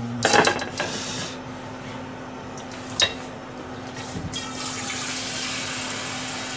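Kitchen tap running into a metal yukihira saucepan, filling it with water for soup, starting about four seconds in. Before it, the pan clatters as it is lifted, and there is a sharp click about three seconds in.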